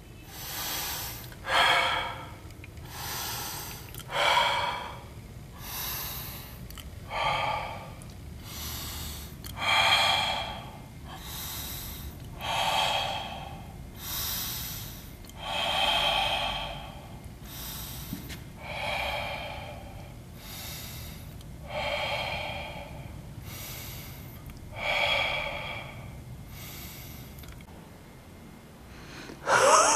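A person breathing heavily and audibly in and out, close up, about twenty breaths in a row, each lasting about a second.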